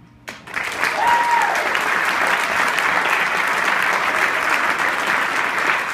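An audience applauding, breaking out suddenly just after the start and carrying on steadily. A single short high tone rises and falls over it about a second in.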